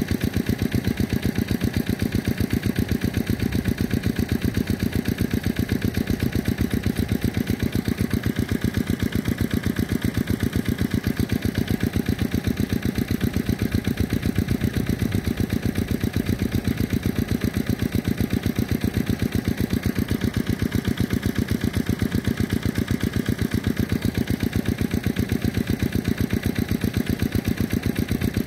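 Diesel engine of an irrigation water pump running steadily at a constant speed, with a rapid, even beat.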